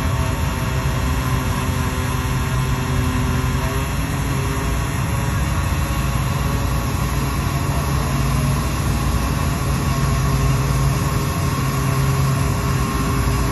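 A passenger ferry's engine running steadily under way, a constant low drone over a continuous rush of noise.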